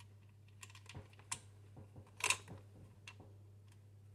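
Scattered sharp plastic clicks and taps from an under-cabinet fluorescent light fitting being handled and its cable fitted, the loudest a little past two seconds in, over a low steady hum.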